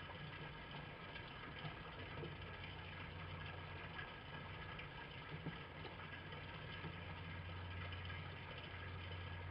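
Steady low hum under a faint even hiss, with a few faint soft clicks now and then.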